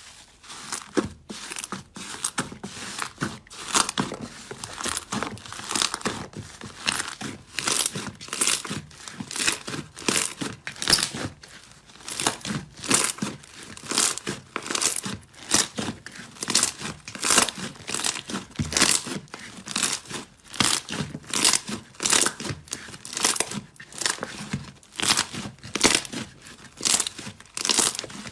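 Slime being squeezed and pressed by hand, giving a rhythmic run of crackling, crunchy squishes about twice a second.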